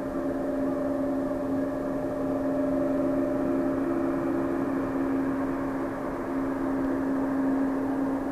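Twin jet engines of a Boeing 767 airliner running steadily at low power as it rolls along the runway: an even rushing noise with a few steady humming tones that neither rise nor fall.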